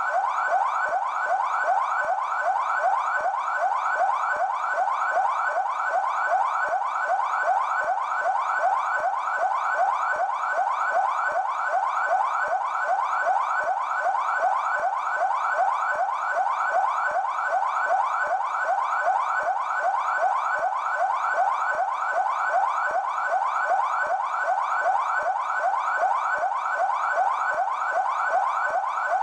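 São Paulo Military Police (PMESP) electronic siren sounding its yelp tone: a rapid, unbroken run of rising wails, about three a second.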